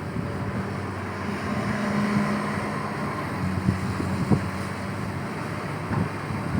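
XCMG XE215C hydraulic excavator's diesel engine running steadily, swelling a little for a couple of seconds, with a few light knocks past the middle.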